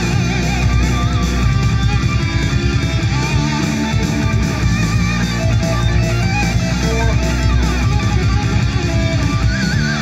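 Hisense Party Rocker One party speaker playing guitar-driven rock music loudly, with a heavy bass line and electric guitar.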